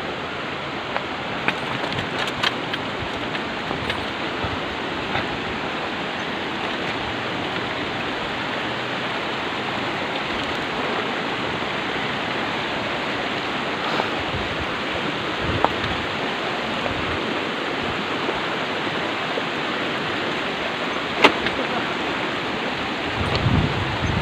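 Shallow river flowing over stones, a steady rushing hiss, with a few sharp clicks, the loudest one near the end.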